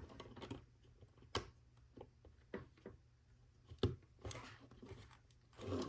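Scattered small clicks and taps of plastic Lego pieces being handled and pressed together, with faint rustling; the sharpest clicks come a little over a second in and just before four seconds.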